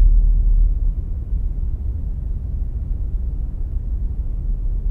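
Deep, rumbling drone from a Kilpatrick Phenol analog synthesizer in an ambient patch, sinking to a quieter, rougher low rumble over the first second and starting to swell back up at the very end.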